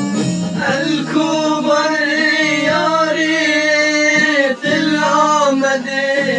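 Music: a male voice sings a drawn-out melodic line over sustained instrumental backing, with a brief break about four and a half seconds in.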